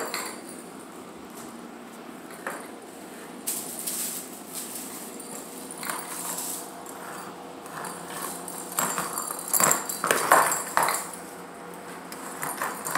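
Young kittens playing on a hardwood floor: scattered scuffling, scratching and light knocks, busiest and loudest a little before the end.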